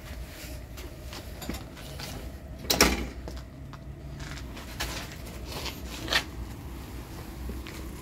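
City bicycle with a wire front basket being handled and wheeled, giving scattered clicks, rattles and knocks from its frame and basket, with one loud clack about three seconds in.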